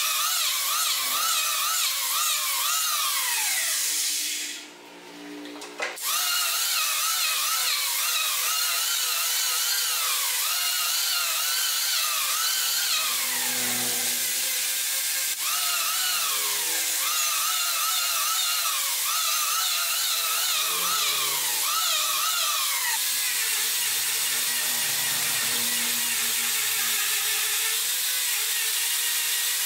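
Electric hand planer whining as it shaves a curved wooden rail, its pitch sagging under load on each pass and recovering, with a brief cut-out about five seconds in. In the last few seconds an angle grinder with a sanding disc runs steadily against the wood.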